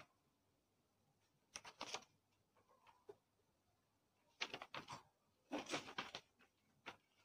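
Faint rustles and clicks of a paper user manual being handled, in short bursts about one and a half, four and a half, five and a half and seven seconds in, with near silence between.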